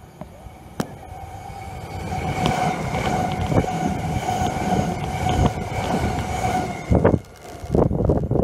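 A Z50000 Francilien electric multiple-unit passing close at speed: a rising rumble with a steady whine and scattered wheel knocks, then two heavy low buffets near the end as the train's tail goes by.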